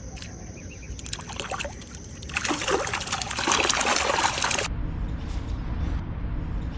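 Water trickling and splashing, with a louder rush of water lasting a couple of seconds in the middle that cuts off suddenly.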